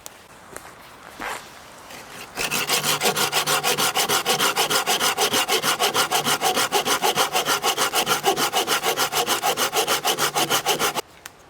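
Hand saw cutting through a piece of firewood in fast, even back-and-forth strokes, several a second. It starts about two and a half seconds in and stops abruptly near the end.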